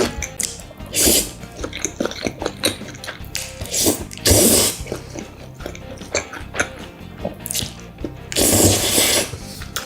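Close-miked eating of spaghetti: wet chewing and mouth clicks throughout, with three long slurps of noodles about a second in, near the middle and near the end.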